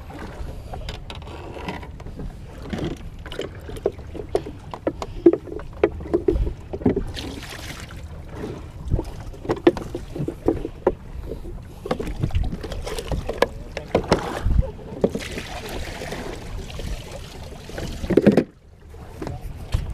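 Irregular clicks, knocks and rustles of squid-fishing gear (rod, spinning reel and line) being handled in a small wooden boat, over a low steady rumble of wind on the microphone.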